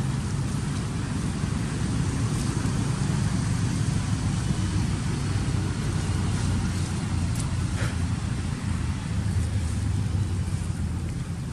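Steady low rumble of a motor vehicle's engine running nearby, with a faint brief squeak about eight seconds in.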